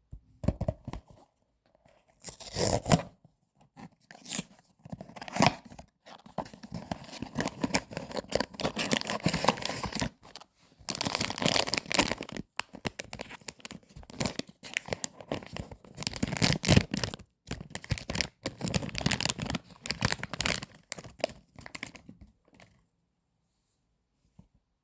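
Blind box packaging being torn open and handled: irregular tearing and crinkling of wrapping in stops and starts, ending about two seconds before the end.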